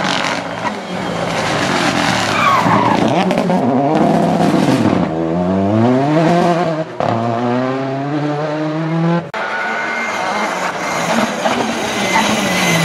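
Rally car engines at full throttle: a Renault Clio rally car pulls away with its engine note climbing steeply through the revs, tyres sliding and scrabbling on loose dirt and gravel. After a couple of abrupt cuts, a Škoda Fabia rally car's engine is heard approaching.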